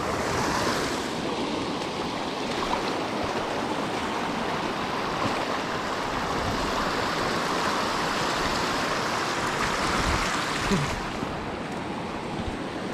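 Shallow river water rushing steadily over rock ledges, a little softer near the end.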